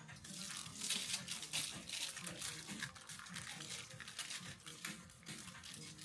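Kitchen food-preparation sounds: a busy, irregular crackling and rustling.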